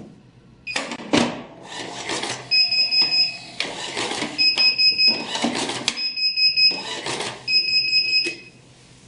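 Thermal receipt printing from a POS cash register setup: short bursts of the printer mechanism feeding and printing paper tickets. Interleaved with them, a high electronic beep sounds four times, each about a second long, typical of a kitchen printer's alert buzzer.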